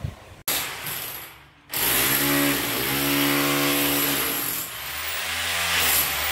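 Electric demolition hammer hammering rapidly as it chips up old ceramic floor tiles and thinset: a short burst that fades, then from just under two seconds in a loud, steady run.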